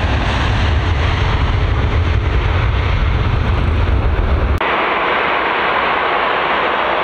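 Boeing 737 jet engines at takeoff power, a heavy, steady low rumble as the airliner rolls down the runway. A little over four and a half seconds in, the sound changes abruptly to the engine noise of a second 737 facing the camera: a hissing jet sound without the deep rumble.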